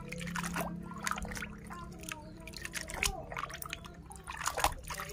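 Water sloshing and splashing in a plastic bucket as a hand scrubs a plastic toy under the surface, with irregular small splashes and drips.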